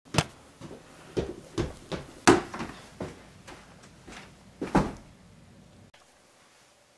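Footsteps climbing wooden stairs: a dozen or so thuds, about two a second, ending about six seconds in.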